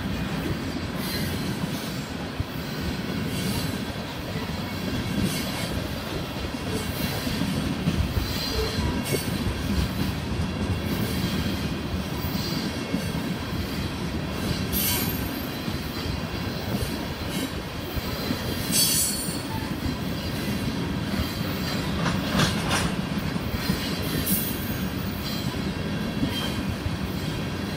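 Railroad oil tank cars rolling past: a steady rumble of steel wheels on rail with light clicking at the rail joints, and a few brief high-pitched wheel squeals.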